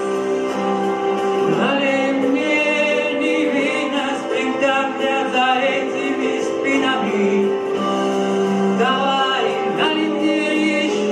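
Music with singing voices, long held notes over a sustained accompaniment.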